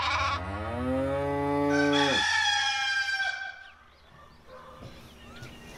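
A cow mooing, its call rising in pitch and cutting off about two seconds in, overlapped near its end by a rooster crowing.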